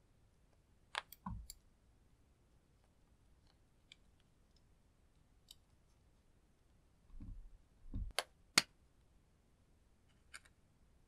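Sharp clicks and dull knocks of small scissors and makeup handled over a glass tray while a lipstick is cut up. A couple of clicks come about a second in, faint ticks follow, and the loudest pair of clicks, each after a knock, comes about eight seconds in.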